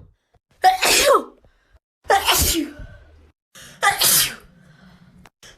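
A person sneezing three times in quick succession, about a second and a half apart. Each is a sudden loud burst ending in a voiced 'choo' that falls in pitch. A fourth sneeze begins at the very end.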